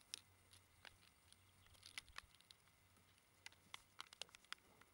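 Near silence broken by faint, irregular light clicks and ticks of a step-in fence post's fittings being handled and fastened to a portable corral panel, coming more often toward the end.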